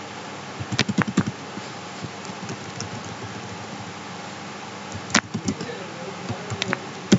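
Computer keyboard typing: a short run of keystrokes about a second in and another about five seconds in, over a steady faint room hum.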